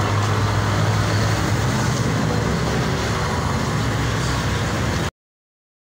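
Road traffic with a vehicle engine running close by: a steady low engine hum over a wash of traffic noise, cutting off suddenly about five seconds in.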